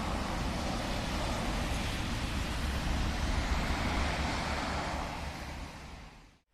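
Steady outdoor rushing noise with a low, uneven rumble, fading out near the end.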